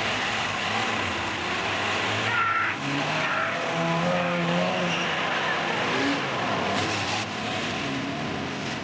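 Engine of an off-road 4x4 running through a steady wash of noise, with a short wavering pitched sound about four seconds in.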